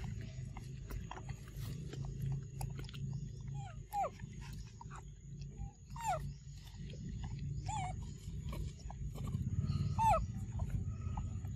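Macaque giving about four short whimpering calls, each falling in pitch, a few seconds apart, over a low steady rumble.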